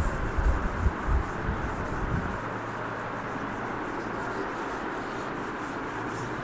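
Chalkboard eraser wiping across a blackboard in quick repeated back-and-forth strokes, a dry rubbing swish several times a second. A few low knocks sound in the first two seconds.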